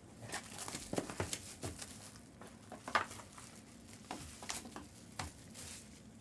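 Faint crinkling, rustling and small clicks of trading-card packs and cards being handled and opened, with scattered light ticks and a sharper click about three seconds in.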